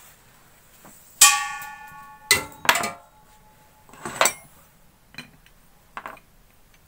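Metal tools clanking as a spanner is taken up and set on the brass hose nut of an LPG regulator: one loud ringing clang about a second in, then several shorter clinks and knocks.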